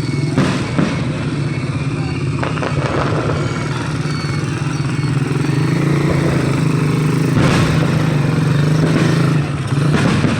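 Fireworks going off in the open: a few sudden bangs, two close together about half a second in and more around the middle and near the end, over a steady low motor drone.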